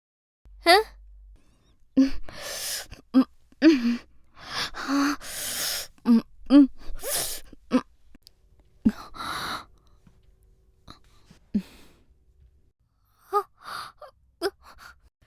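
A woman's voice in a string of short, separate laughs and gasps, some breathy and some rising in pitch, with brief gaps between them. They thin out and grow quieter in the second half.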